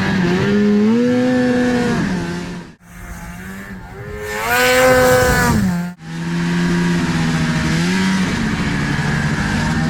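Snowmobile's Rotax 583 two-stroke twin under throttle, revving up and easing back several times. The sound cuts off abruptly twice, about three and six seconds in.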